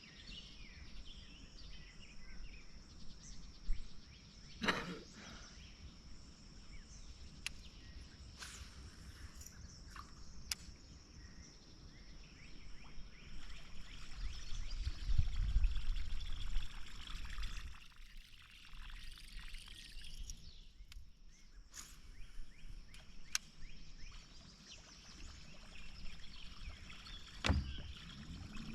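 Outdoor ambience with a steady high-pitched hum, a few sharp clicks and knocks, and a low rumble about halfway through.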